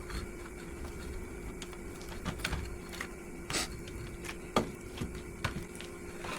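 Irregular clicks and short rustles of gloved hands winding a sticky, resin-soaked fiberglass repair wrap tightly around a pole, over a steady faint hum.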